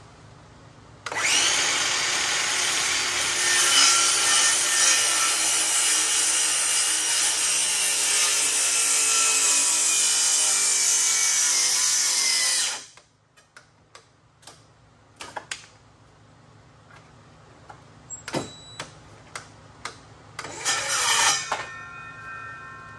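Handheld circular saw cutting through a wooden plank in one long cut of about eleven seconds, the pitch sagging slightly under load, then stopping abruptly. A few light knocks follow, and the saw runs again briefly near the end.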